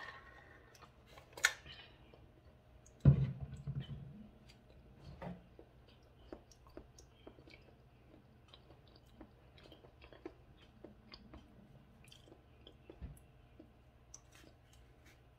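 A person chewing pineapple close to the microphone: small wet clicks and crackles of the mouth. A sharp click comes about a second and a half in, and a loud thump about three seconds in.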